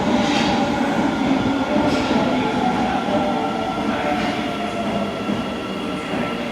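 Osaka Metro Tanimachi Line 22 series subway train running at the platform, its drive making a whine of several tones that slowly fall in pitch over the rumble of the wheels, with some wheel squeal; the sound fades slightly.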